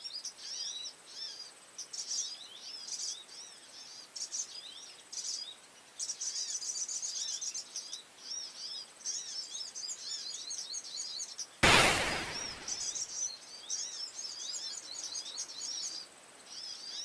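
Small songbirds chirping rapidly and continuously in high, repeated notes. About twelve seconds in, a single sudden loud thump cuts across them and fades within a second.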